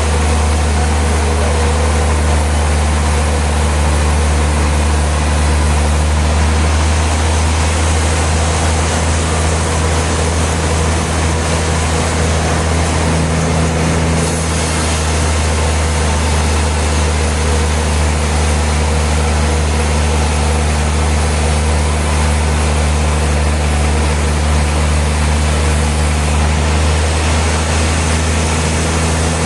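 Sawmill machinery running with a steady low hum and a continuous mechanical noise, its tone shifting slightly about halfway through.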